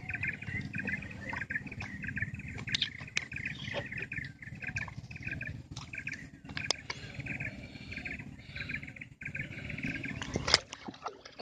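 Birds chirping in a steady, fast, continuous chorus over a low rumble, with scattered light clicks and a sharp knock near the end.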